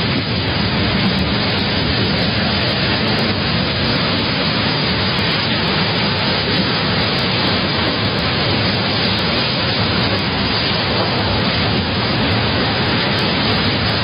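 Storm-force wind with driving rain: a loud, steady rush of noise with no breaks or distinct impacts.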